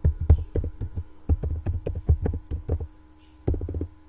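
Typing on a computer keyboard: quick, irregular runs of key clicks, with a short pause about three seconds in.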